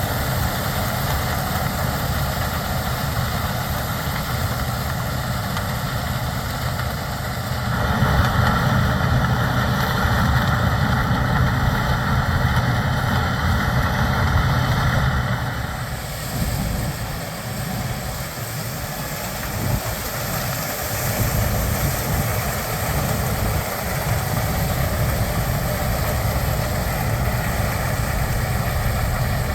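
Gleaner S97 combine's 9.8-litre inline seven-cylinder twin-turbo diesel and threshing machinery running steadily while harvesting corn. It grows louder about a quarter of the way in, holds for several seconds, then drops back.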